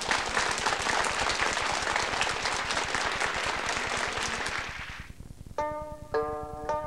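Audience applause, a dense patter of clapping that fades out over about five seconds. Then a tune of sharply struck, plucked-sounding notes begins near the end.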